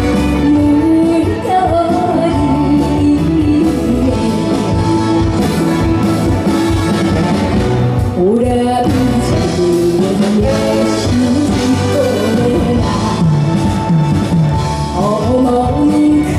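Live trot song performance: a band accompaniment with a sung melody line over it.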